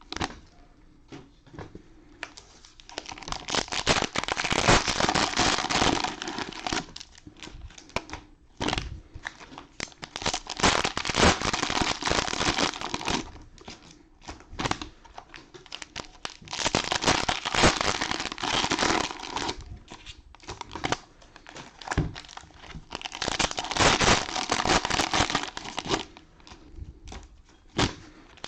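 Crinkling of cellophane-wrapped trading-card packs being handled, coming in four bursts of a few seconds each, with sharp crackles and clicks between them.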